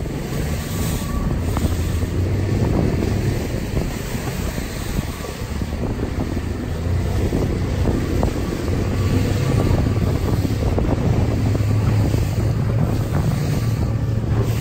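Wind buffeting an action camera's microphone over the rush of water and spray along a racing catamaran's hulls, a steady dense noise with many small crackles.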